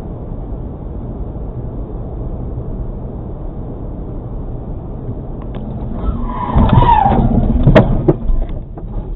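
Car road and engine noise heard through a dashcam, then about six seconds in tyres squeal with a falling pitch. A sharp crash impact comes about a second later, followed by a few smaller knocks.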